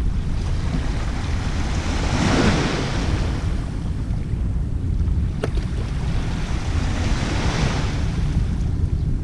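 Small waves washing against a concrete harbour edge, swelling twice, with wind rumbling on the microphone throughout and a single small click about halfway.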